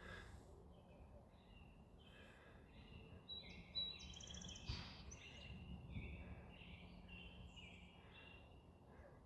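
Faint outdoor birdsong: many short chirps and calls, busiest and loudest around the middle, with a soft knock partway through.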